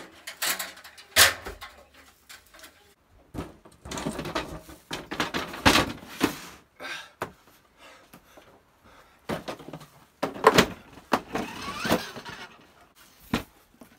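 Wooden attic hatch cover pushed open and slid aside, then a plastic toy ride-on quad bike shoved up through the opening onto the plank floor: a run of knocks, bumps and scrapes. The loudest thuds come about a second in and about ten and a half seconds in.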